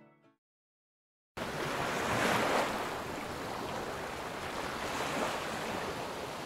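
The tail of background music dies away, then after about a second of silence a steady rush of surf and wind on the microphone cuts in abruptly.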